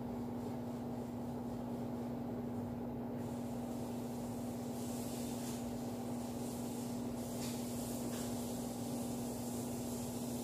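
A steady machine hum with one strong constant low tone, as from a motor or appliance running. A faint higher hiss comes and goes in the middle.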